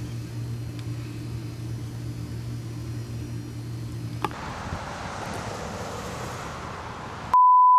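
A steady low electrical hum cuts off with a click about four seconds in and gives way to a soft, steady outdoor rushing noise. Near the end a loud, steady single-pitch beep tone starts.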